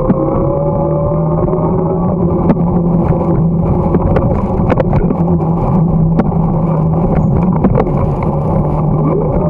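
Bicycle riding noise on a winter path: wind rumbling on the microphone with a steady hum underneath and scattered clicks and knocks from the ride. A higher tone rises in pitch near the end.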